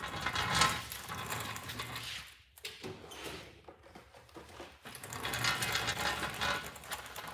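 Off-camera shuffling and rustling with a crackly, rattling texture, as a person walks off and fetches something. It comes in two stretches, with a near-quiet gap and a few clicks in the middle.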